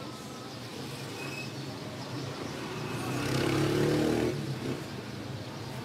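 Steady low hum, with an engine of a passing motor vehicle swelling up and fading away about three seconds in.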